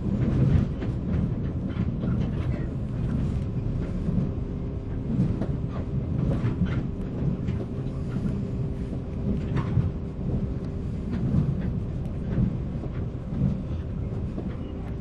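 Interior running sound of a 485-series electric multiple unit motor car (MoHa 485) under way: a steady low rumble with a constant motor hum, and irregular clicks and clatter as the wheels pass over rail joints.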